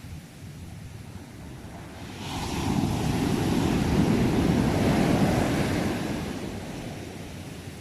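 Sea waves on a shore. Over a soft, steady hiss of surf, one wave breaks about two seconds in and swells into a loud wash. It then fades away over the next few seconds.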